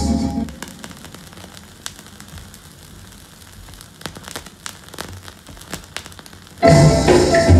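Vinyl record surface noise in the silent groove between two songs: a faint hiss with scattered clicks and pops under the stylus, after the last note of the previous song dies away at the start. The next song starts suddenly near the end.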